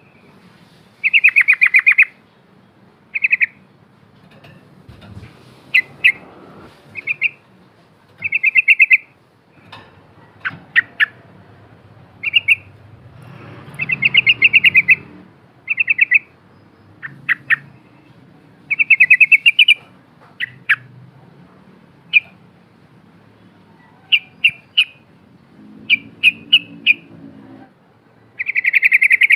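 Yellow-vented bulbul (trucukan) singing in short, rapidly trilled phrases of under a second each, repeated every second or two. Quicker clipped notes come between the phrases.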